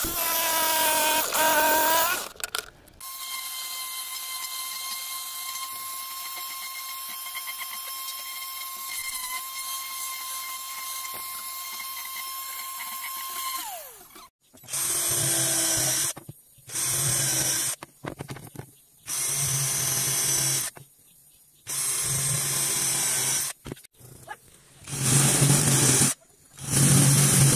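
A Bosch jigsaw cutting a curve in a pine board for about two seconds, then a random orbital sander running steadily on the pine with a level whine for about eleven seconds and winding down. Then a drill boring holes in a pine block, starting and stopping in six short runs.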